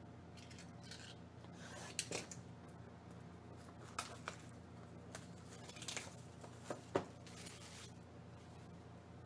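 Trading card packs and cards being handled: brief rustles of wrapper and card stock with a dozen or so sharp clicks at irregular intervals, the loudest about two, four and seven seconds in.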